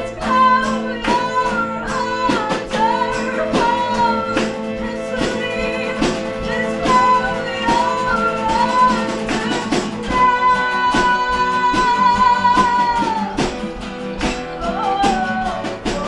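Live band playing: two acoustic guitars strummed over a small drum kit, with a woman singing the melody and holding one long note about ten seconds in.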